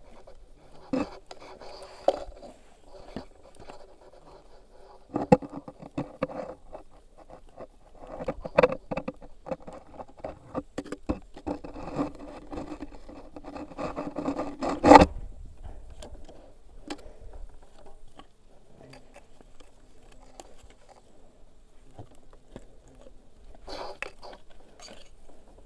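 Hand work on metal parts: irregular scraping, rattling and clicks, with scattered sharp knocks and the loudest knock about 15 seconds in.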